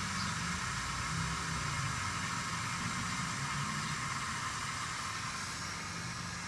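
Steady hiss of a Fix-a-Flat aerosol can discharging sealant and propellant into a flat tire, inflating it. The hiss eases slightly near the end.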